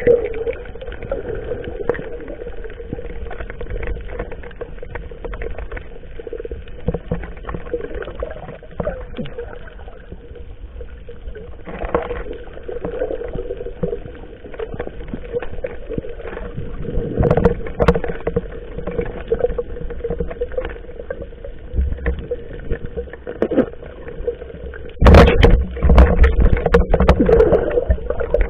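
Small fishing boat's engine running steadily, with scattered splashes and knocks, and a louder burst of noise about 25 seconds in.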